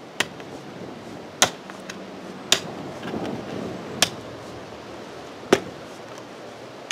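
Long-handled digging tool chopping into garden soil while a planting hole is dug: five sharp strikes, about one every second and a half, with duller rustling of loosened earth between them.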